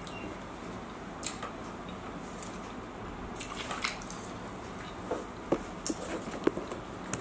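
Someone eating a fried momo topped with sausage: soft wet squishes and small clicks of biting and chewing, which come more often in the last couple of seconds.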